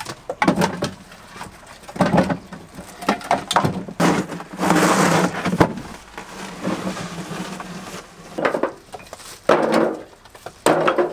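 Split firewood pieces knocking and clattering as they are picked off a pile and tossed into a wheelbarrow, in irregular bursts of clunks with one longer rattling clatter about four to five seconds in.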